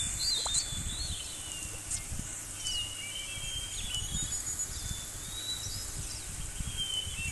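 Outdoor nature ambience: birds chirping and whistling over a steady high insect hiss, with irregular low thumps underneath.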